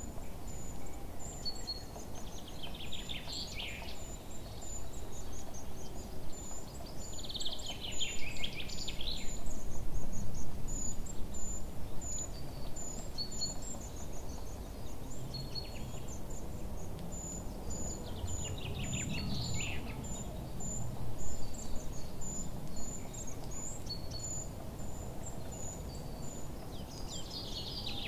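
Birdsong over a steady low background noise: a run of short, high repeated chirps throughout, with a trilling burst of song every several seconds.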